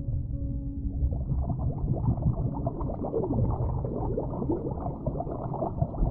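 Muffled underwater sound of water bubbling and sloshing, dull and low with nothing bright above it, setting in about a second in as a few held musical tones die away.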